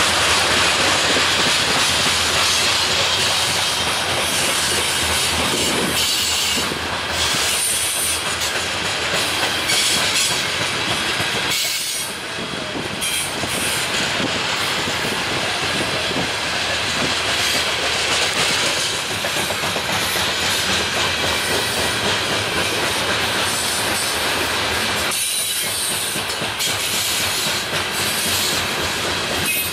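Loaded coal train's cars rolling past at close range, steel wheels clacking over the rail joints under a steady rumble.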